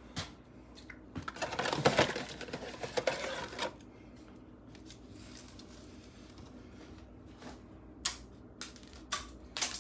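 Kitchen scissors cutting dry oven-ready lasagna noodles: a crackling, snipping cut from about one to four seconds in. A few sharp clicks follow near the end.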